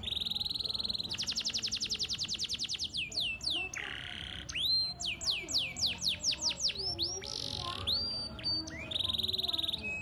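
Domestic canary singing a long, varied song. It moves through a rapid rolling trill, runs of high downward-sweeping whistled notes, buzzy phrases, and another rapid trill near the end.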